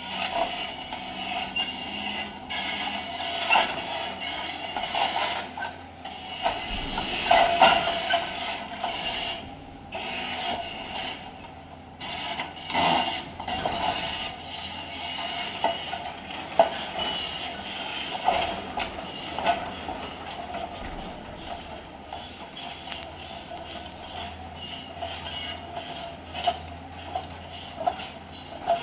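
Caterpillar 365C Ultra High Demolition excavator working demolition debris with its grab: continuous scraping and grinding of concrete and metal, with frequent knocks and clanks over the machine's steady low engine hum. The heaviest crunches come about seven seconds in and again around thirteen seconds.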